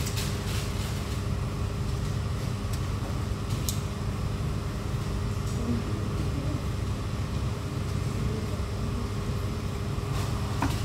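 Steady low hum of a restaurant's air-conditioning and ventilation, with a faint held drone in it and a couple of faint clicks.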